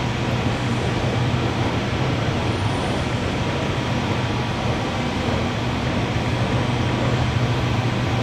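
Steady rumble of an underground MRT station platform, an even rushing noise with a low hum underneath and no single event standing out.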